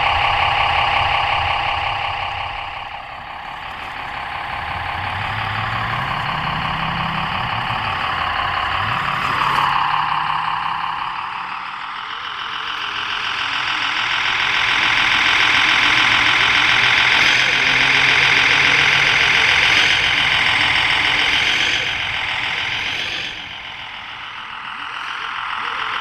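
Simulated diesel truck engine sound from an RC truck's Servonaut SM3 sound module, played through its small onboard speaker. It runs continuously and rises and falls in pitch and loudness with the throttle, dipping quieter a few times.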